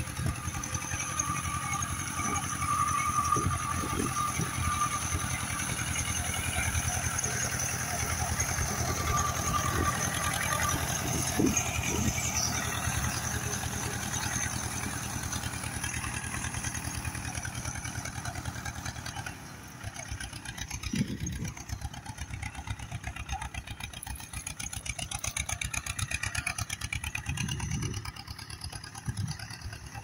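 Small engine of a homemade mini tractor running steadily under load as it pulls a plough through stubble, with an even, fast engine beat. It drops in level about two-thirds of the way through, with people talking in the background.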